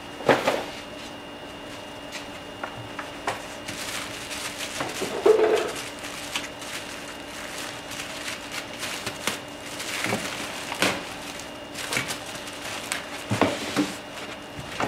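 Cardboard box and foam packing being handled as a boxed plasma cutter is pulled out: scattered rustles, scrapes and knocks.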